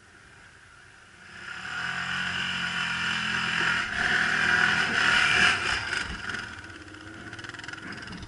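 ATV (quad bike) engine revving under load as it climbs a slope toward the microphone. It grows loud from about a second in, is loudest as it passes close at four to five seconds, then fades.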